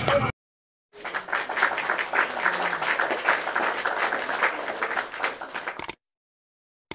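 Applause: a crowd clapping for about five seconds, starting a second in and cutting off abruptly.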